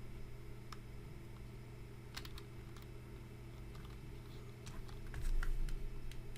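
A few scattered keystrokes on a computer keyboard, heard as separate sharp clicks, over a steady low hum.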